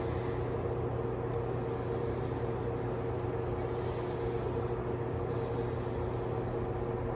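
A steady mechanical hum with constant low tones over a background rumble, unchanging throughout.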